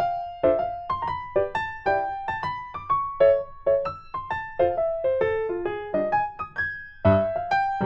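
Background piano music: a light melody of single notes and chords, each note struck and then fading, a few notes a second.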